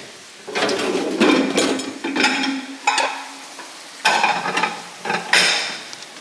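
Dishes and cutlery clattering and clinking as a dishwasher's lower rack is unloaded, in several bursts with a sharp knock about three seconds in. Under it runs a steady sizzle of onions, peppers and ground beef frying in pans on the stove.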